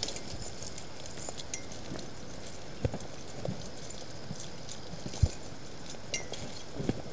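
Light, irregular jingling, rattling and clicking of a bicycle being pushed along on foot, with scattered footsteps.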